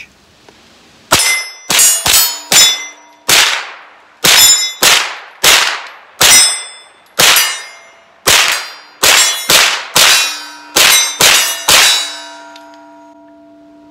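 Foxtrot Mike 9mm rifle firing a string of about eighteen shots, roughly one to two a second, each hit setting steel targets ringing. The steel keeps ringing for about two seconds after the last shot.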